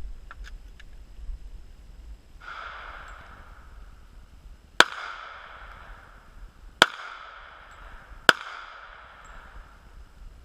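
Three gunshots, about two seconds and then a second and a half apart, each with a ringing echo trailing off. A softer, duller report comes about two and a half seconds in.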